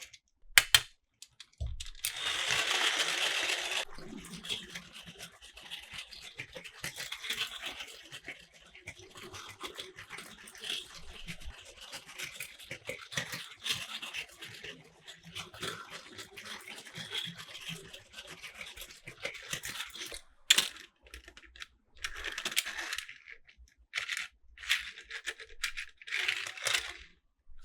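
Toy track play: a battery-driven Plarail toy train's small motor whirring and Tomica die-cast minicars clicking and clattering along plastic track pieces. Many scattered clicks, with a louder rattling stretch from about two to four seconds in.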